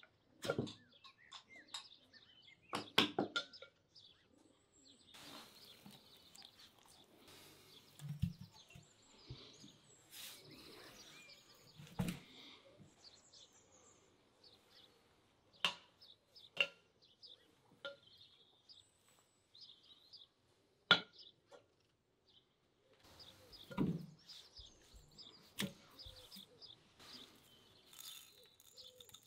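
Raw beef ribs being handled and laid into a metal Afghan cauldron: soft handling noise with scattered sharp clicks and knocks of meat and bone against the pot. Birds chirp faintly in the background.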